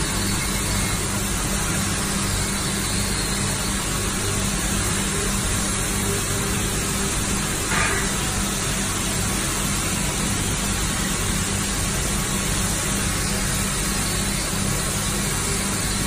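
Flexo plate washing machine running steadily: an even, continuous hiss over a low hum as a cleaned plate feeds out of it.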